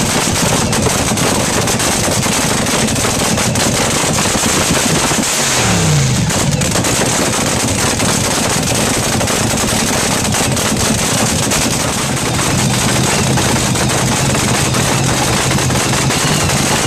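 A supercharged nitromethane-burning dragster V8 running with a loud, rapid, crackling firing. The throttle is blipped about six seconds in, and the engine settles to a steadier note from about twelve seconds.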